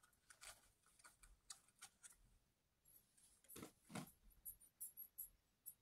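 Near silence with faint, scattered small clicks and ticks from handling a small object, a little louder about three and a half to four seconds in.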